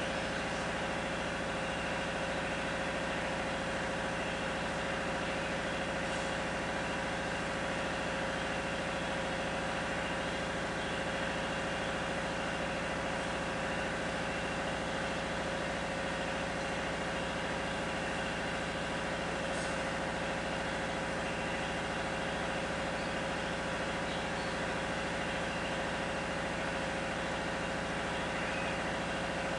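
Steady, unchanging mechanical hum with several fixed tones, like a machine running.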